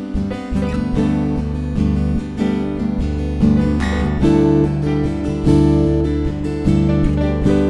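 Background music: strummed acoustic guitar playing a light tune, with chords changing about every second.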